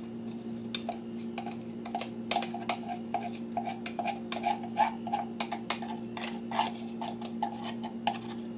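A utensil scraping and clicking against the inside of a glass container in quick repeated strokes as thick chocolate cake batter is scraped out into a dish, over a steady low hum.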